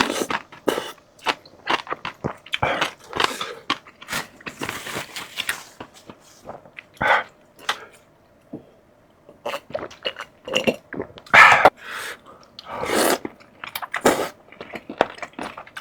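Close-miked eating: crunchy food being bitten and chewed in quick crunches, with a short pause about halfway.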